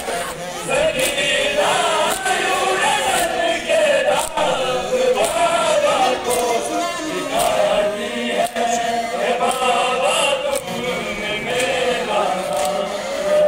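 Many men chanting a mourning noha together, with sharp slaps of hands striking bare chests in matam about once a second.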